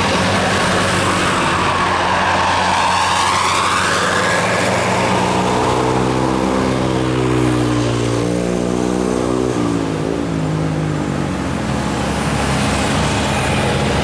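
Tour bus's diesel engine passing close and pulling away, with a rising-then-falling whine as it goes by. Its engine note changes pitch in steps about halfway through.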